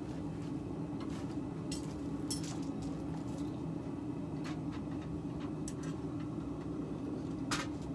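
Light clicks and clinks scattered over a steady low hum, the sharpest click near the end.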